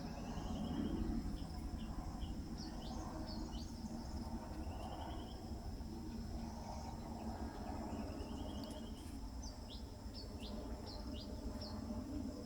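Small birds calling: three buzzy rising trills about a second long and scattered short, sharp falling chirps. Under them runs a steady low rumble.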